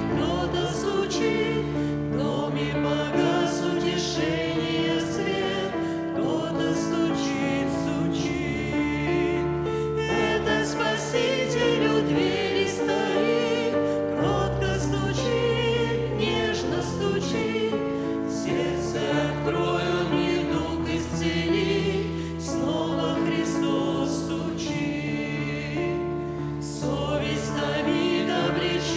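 A church choir sings a Christian hymn, with held, wavering voices over a sustained low accompaniment.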